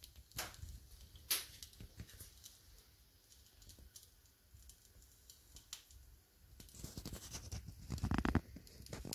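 Faint handling noise from a handheld camera: a couple of light clicks in the first second and a half, then a louder rustle from about seven to eight and a half seconds in.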